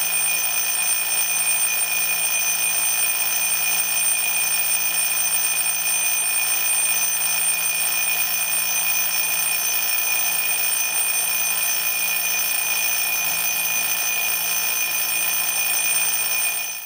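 Rhythm alarm clock's metal bell ringing continuously at a steady level, then stopping near the end with a brief ring-out.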